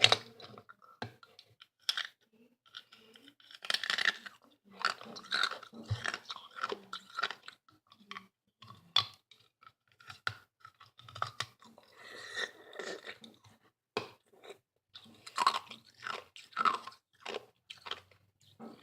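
Ice being crunched and chewed close to the microphone, in irregular bouts of crackly bites with short pauses between them.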